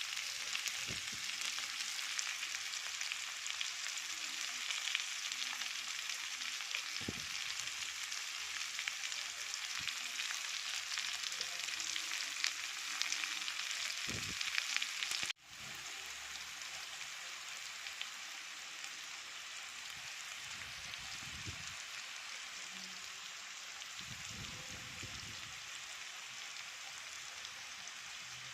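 Mandai frying in hot oil in a pan, sizzling steadily, with a few soft low knocks. About halfway through the sizzle drops out for an instant and comes back a little quieter.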